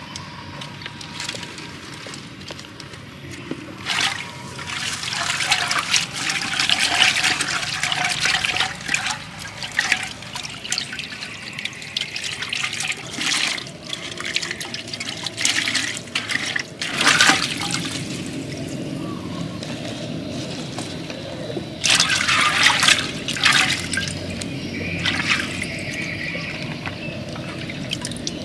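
Water splashing and sloshing in a pot as hands wash red chilies in it. The splashes come in irregular bursts, loudest about halfway through and again a little later.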